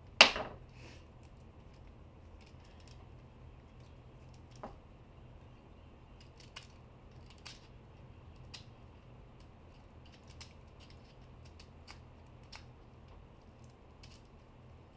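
A small metal part or tool clanks down onto the workbench just after the start, ringing briefly. It is followed by scattered light metallic clicks and ticks as a hand pick works at an aluminium AN hose-end fitting on braided PTFE hose.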